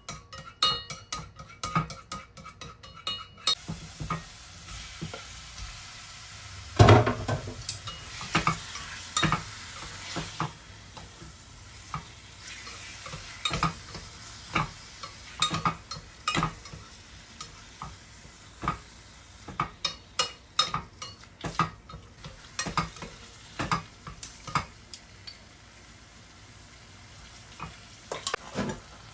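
Food frying in a pan, sizzling steadily, while a utensil stirs it with repeated scrapes and knocks against the pan. A quick run of clicks comes in the first few seconds, and one loud knock about seven seconds in.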